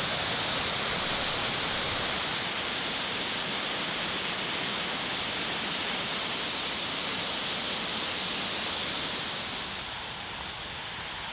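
Waterfall rushing steadily, a continuous even roar of falling water that eases off slightly near the end.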